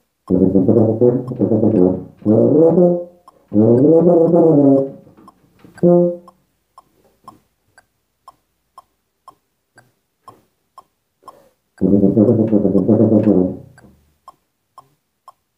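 Rotary-valve tuba playing short phrases over a metronome ticking at 120 beats a minute. In the middle, about six seconds hold only the ticks before the tuba comes back in.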